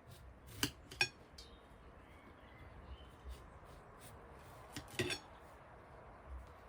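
Dishes and cutlery clinking as they are handled: two sharp clinks close together about a second in, with a short ringing tail, and another clatter about five seconds in.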